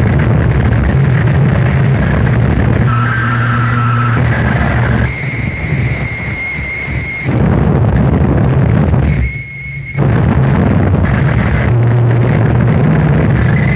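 Harsh noise music: a loud wall of distorted noise over a heavy low hum. It cuts back abruptly twice, about five and nine seconds in, and each time steady high feedback tones ring through before the full noise returns.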